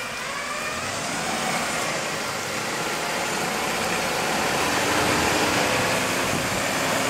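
4x4 pickup engines running and revving under load, growing steadily louder, during a tow-strap recovery of a pickup stuck in mud.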